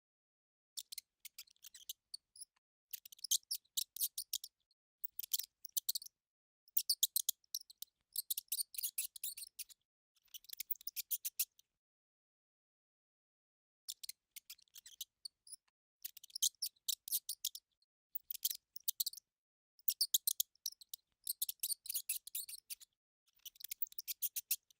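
Mouse squeaking: quick runs of very high-pitched chirps and clicks in short clusters, broken by brief pauses and a longer pause of about two seconds midway.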